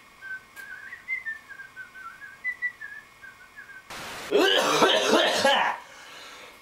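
A man whistling a short wavering tune for about three seconds, then a loud cough.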